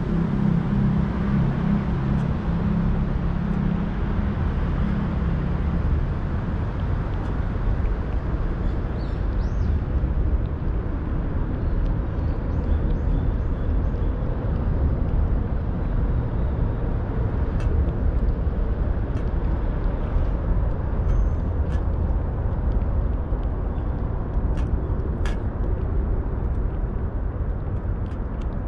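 Steady low outdoor rumble, heavier for the first few seconds, with faint sharp clicks from about halfway on as a cat licks and chews wet food from a steel dish.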